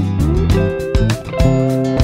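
Background music: a guitar-led track with a steady beat, about two beats a second.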